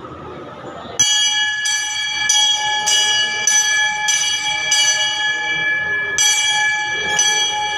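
Large hanging brass temple bell rung by hand, struck about nine times at a little under two strikes a second, with a short pause near the end. Each strike rings on into the next.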